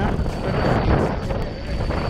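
Wind buffeting the microphone of a camera on an open boat at sea: a loud, uneven rumble that swells and fades.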